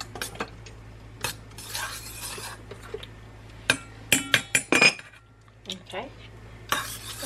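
A metal spoon stirring a liquid mixture in a stainless steel mixing bowl, clinking and scraping against the bowl. A quick run of sharper ringing clinks comes about four seconds in.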